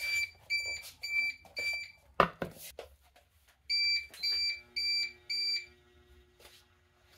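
APC Back-UPS sounding its on-battery warning: two sets of four short high-pitched beeps, about two a second, because it is running as an inverter off a battery with no mains connected. A knock comes between the two sets. A low steady hum sets in during the second set as the fan load comes on.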